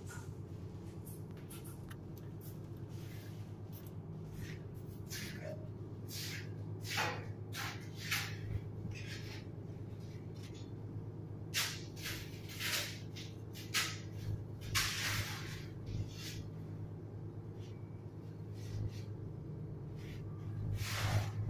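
Fishing boat's engine running with a steady low hum, and short scrapes and knocks now and then.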